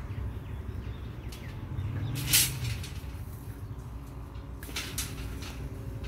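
Steel binding wire and rebar being handled as a pile cage is tied, giving scattered metallic clicks and knocks, with one sharper clank about two seconds in, over a low steady hum.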